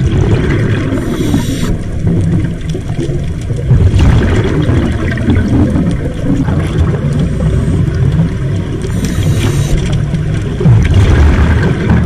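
Scuba breathing heard underwater: a steady low rumble and gurgle of exhaled bubbles, with a short hiss about a second in and again near nine seconds.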